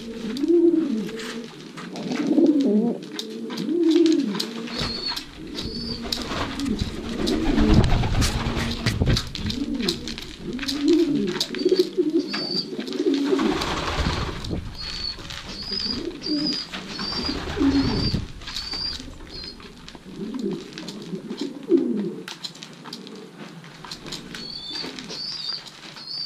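Racing pigeons cooing over and over, several birds overlapping, with runs of thin high chirps mixed in. A few brief bursts of noise break in about a third and halfway through.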